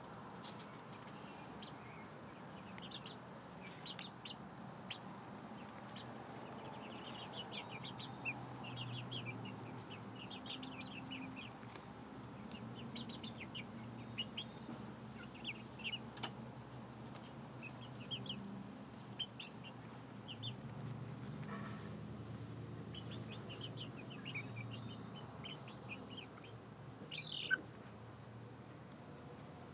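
Young pullets, five to seven weeks old, peeping with many short high chirps over softer low clucks, one chirp louder than the rest near the end.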